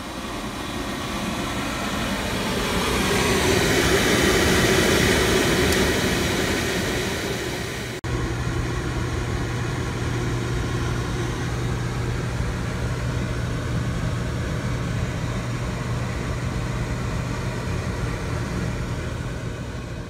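Oil burner running: a steady mechanical hum and rushing noise that swells over the first few seconds. About eight seconds in it cuts off abruptly and gives way to a steadier low hum.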